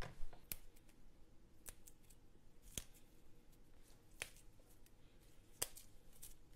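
Metal spoon clicking and scraping against a bowl while stirring a thick, crumbly date-and-flour mixture: a few sharp, irregular clinks, the loudest right at the start, with faint soft stirring between them.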